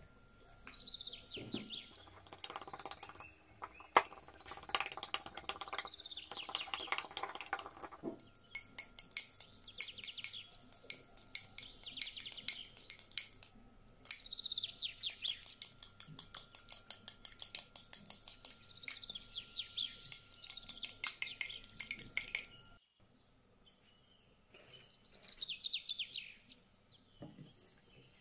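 Rapid, rhythmic clicking of a silicone whisk beating eggs in small glass bowls, first egg whites with parsley and then yolks, with a short pause about two-thirds of the way in. Birds chirp in the background throughout.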